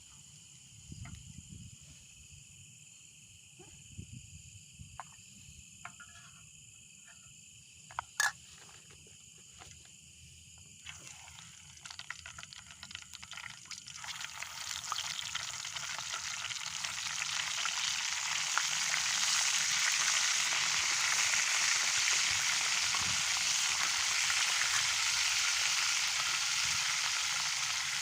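Food frying: a sizzle starts about eleven seconds in, grows louder and settles into a steady hiss. Before it there are a few light clicks and knocks, one sharp click near the middle, over a faint steady high drone.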